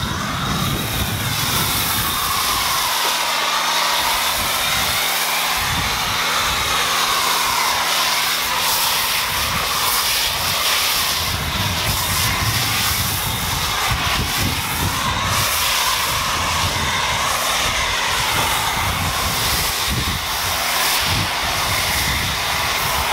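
Pressure washer spraying foam through a foam cannon: a steady hiss of spray whose pitch sweeps slowly up and down as the nozzle moves, over a low steady hum from the washer's pump and motor that sets in a few seconds in.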